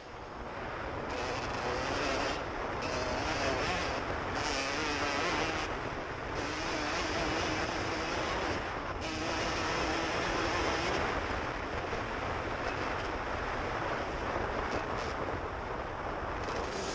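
Suzuki RM125 two-stroke single-cylinder engine running under throttle, its pitch rising and falling and easing off briefly a few times. Wind rushes over the helmet-camera microphone.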